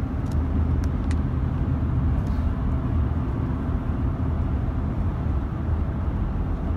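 Road and engine noise inside a moving car's cabin: a steady low rumble, with a few faint clicks about a second in.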